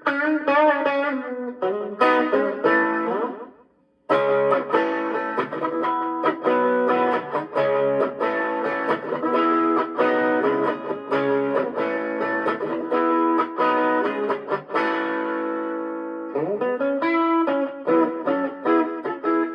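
Electric guitar played through a Fender Champion 20 amp on its Tweed setting with the delay-and-reverb effect, picking a riff of ringing chords and notes. It stops briefly about four seconds in, then plays on.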